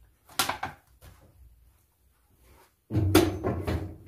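Kitchen handling noises as used ingredients are put away: a sharp knock about half a second in, then a louder clatter and bump lasting about a second, starting about three seconds in.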